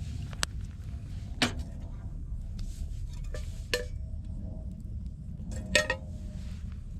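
Metal cookware and utensils clinking together: four separate clinks, each with a short ring, over a steady low rumble.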